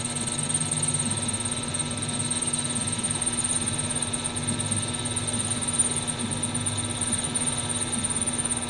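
Small bench lathe running steadily, its motor and spindle humming as the chuck turns a stainless steel ball handle against the revolving centre. The machinist doesn't like how it sounds while it wobbles, and wonders whether something is unlocked.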